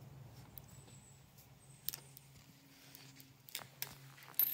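Faint small clicks and taps of metal hardware as a cable lug and nut are fitted by hand onto a contactor's terminal stud, the clearest about two seconds in and a few near the end, over a faint steady low hum.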